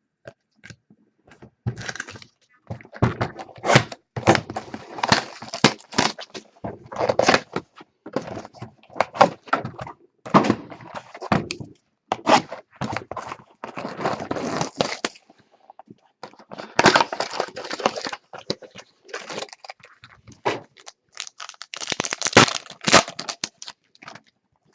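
Trading card packs being torn open and handled: a long run of crackling wrapper noise, sharp cracks and light knocks of cardboard and cards, with two short pauses.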